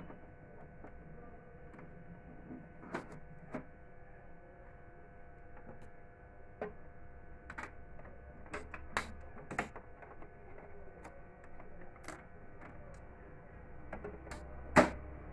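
Scattered plastic clicks and knocks as hands handle parts inside an Epson M2140 printer under its raised scanner unit, with one louder knock near the end, over a faint steady hum.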